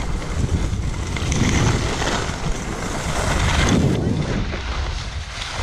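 Wind buffeting the microphone of a downhill skier, over the hiss and scrape of skis sliding on packed snow, which swells twice with the turns.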